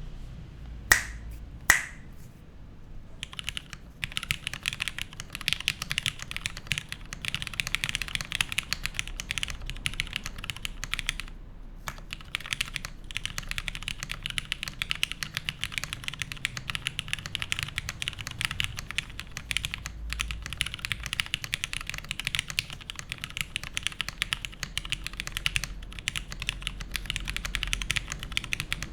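Custom mechanical keyboard with lubed Cherry Hyperglide Black linear switches on an aluminium plate, typed on steadily in a fast run of keystrokes with a brief pause partway through. Two loud sharp clicks come about a second in, before the typing starts.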